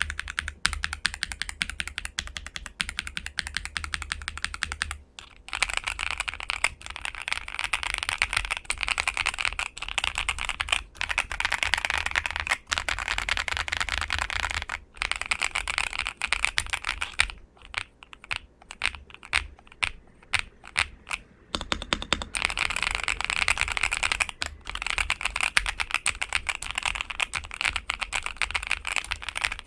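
Typing on a modded ASUS ROG Azoth mechanical keyboard with LEOBOG Graywood v4 linear switches on a polycarbonate plate, damped by foam and PET-film layers: a fast stream of keystrokes with a few short pauses, and a slower stretch of separate key presses in the middle.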